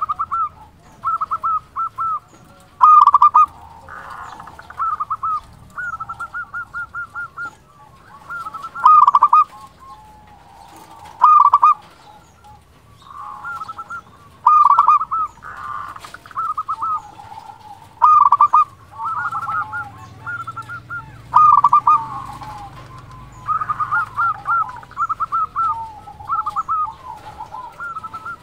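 Zebra doves (perkutut) singing: bursts of quick, rolling staccato coos, one after another every second or two, the calls crowding together near the end.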